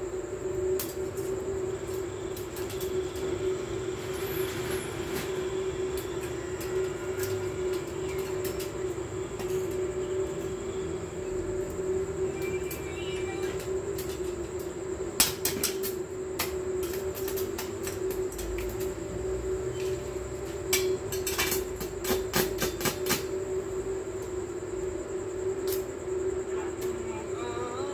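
Electric arc welding on steel bars: a steady buzzing hum with crackle from the arc. Clusters of sharp taps come about halfway through and again about three-quarters of the way through.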